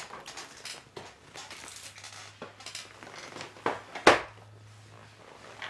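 Cardboard takeout chicken box being handled and set aside: light rustling and a few knocks, with one loud knock about four seconds in.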